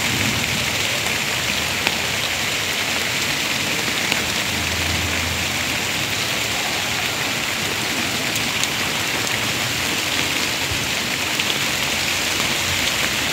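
Steady rain falling, with scattered drop ticks heard through it.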